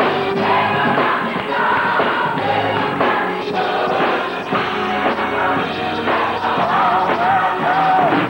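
Gospel choir singing with instrumental accompaniment; near the end one voice holds a wavering note above the rest.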